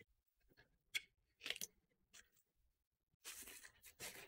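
Cardboard product box being opened by hand: a sharp click and a short scrape as the tucked end flap is pulled free, then bubble wrap crinkling from about three seconds in as the wrapped timer inside is handled.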